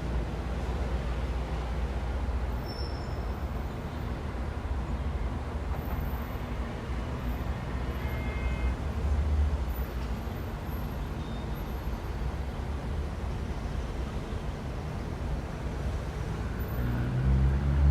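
Downtown street traffic: a steady low rumble of passing vehicles. Near the end a louder engine rises in pitch as a vehicle pulls close.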